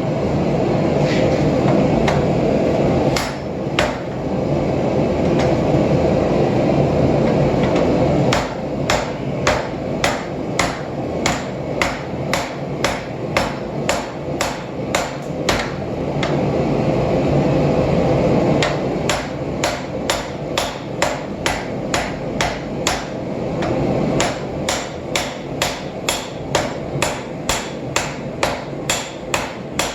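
Hand hammer striking a hot Damascus billet of 1095 and 15N20 steel on the end of a 1-inch sucker rod used as an anvil, drawing the steel down in runs of about two blows a second, with a short pause partway. A steady rushing noise runs underneath.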